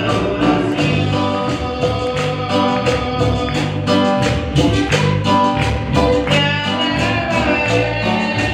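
Worship music with a band: bass, guitar and keys over a steady beat, with singing.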